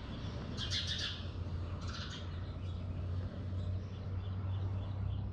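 Short bird calls, one burst about a second in and another about two seconds in, over a low steady hum.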